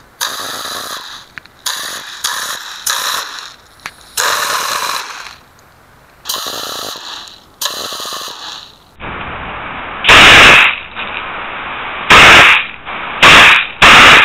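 A homemade compressed-air soda-bottle machine gun firing in a series of short bursts of rushing air as it blows out its pellets. About nine seconds in, a duller recording follows with four much louder blasts.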